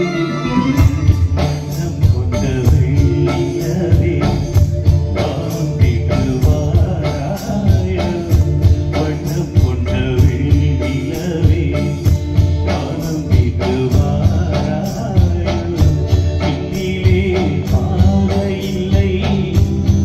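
Live band music through a large PA speaker stack: a male singer over keyboard and hand drums, the drums coming in with a brisk steady beat about a second in.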